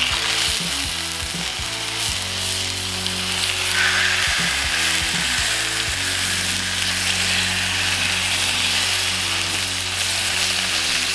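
Seasoned sirloin steaks searing in avocado oil in a cast iron skillet heated to about 450°F: a steady sizzle that grows brighter about four seconds in as more pieces of steak go into the pan.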